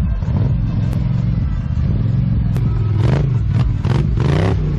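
Polaris Scrambler XP 1000 ATV's parallel-twin engine running and revving, its pitch rising and falling, with a few short bursts of clatter in the second half.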